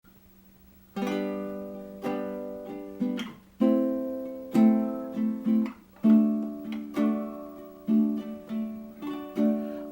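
Baritone ukulele playing a strummed chord introduction. It starts about a second in, with chords struck roughly once a second and a few quicker strokes between them, each one ringing and fading.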